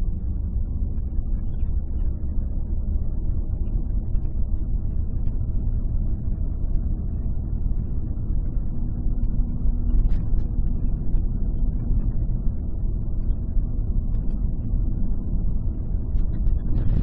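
Steady low rumble of a car driving, engine and tyre noise heard from inside the cabin, with a faint steady hum and a light tick about ten seconds in.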